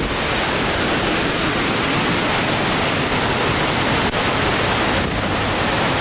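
Hurricane-force wind and heavy rain: a steady, loud rush of noise.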